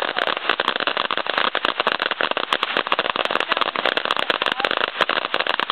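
A consumer firework crackling without pause, a dense, irregular stream of sharp pops, many each second.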